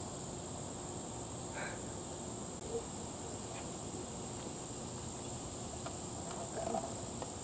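Steady high-pitched insect chorus, a continuous trill of crickets over faint outdoor background noise.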